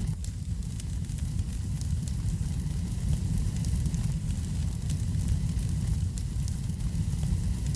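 Wood fire burning in a fireplace: a steady low rumble of flame with scattered small crackles and pops throughout.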